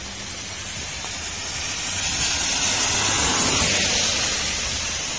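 A car driving through standing water on a flooded road, its tyres hissing and spraying, swelling to a peak about three to four seconds in and easing off. Steady rain hisses underneath.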